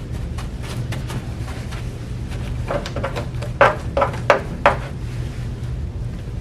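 Steady low hum, with a quick run of four or five short scraping knocks about halfway through, from hand work on the fiberglass bumper.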